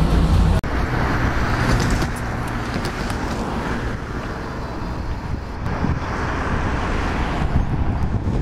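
RM31 railcar's engine rumbling, heard close beside the cab, cut off abruptly about half a second in. It gives way to a steady rumble and hiss outdoors as the railcar approaches along the track, growing slightly louder near the end.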